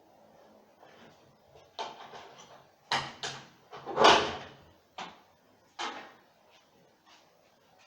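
Washing machine parts and tools knocking and clattering as they are handled during a repair: about half a dozen sharp hits, the loudest and longest about four seconds in.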